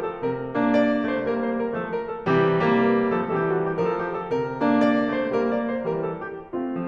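Background piano music, with notes struck in phrases that start about every two seconds.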